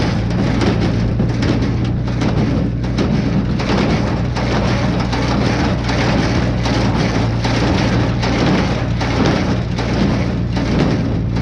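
Tractor engine running steadily while pulling a small square hay baler in operation, with a dense, irregular crackling rattle from the baler over the low engine hum.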